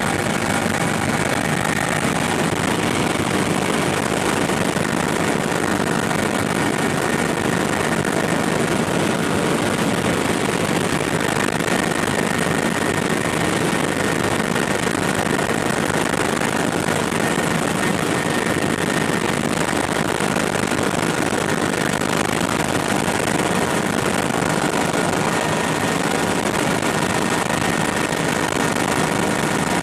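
Helicopter cabin noise in flight: a steady din of the rotor and engine, with a faint steady high whine over it.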